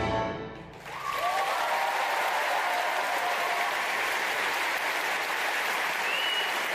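A concert hall audience applauding as a symphony orchestra's last chord dies away. The steady, dense clapping starts about a second in.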